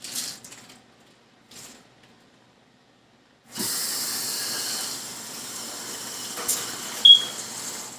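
Kitchen tap turned on and running into the sink for about four seconds, starting suddenly after a few faint handling sounds, with a brief high chirp near the end.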